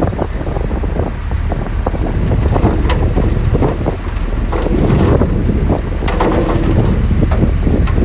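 Dump truck engine running while the raised bed tips out its load of dirt and rocks, which slide and tumble onto the pile with many small knocks that grow denser about halfway through. Wind buffets the microphone.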